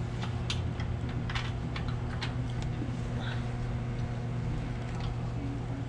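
Socket ratchet on a long extension clicking in short, irregular runs as a bolt is turned, over a steady low hum.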